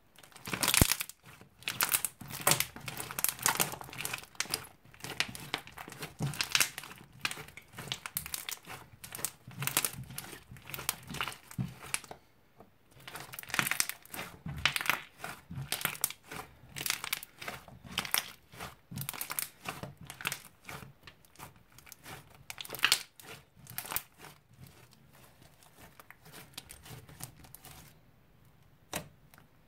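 Thick blue slime with small beads in it, kneaded, squeezed and stretched by hand, giving dense sticky crackles and pops. There is a brief pause partway through, and the pops grow softer and sparser near the end as the slime is pressed flat and poked.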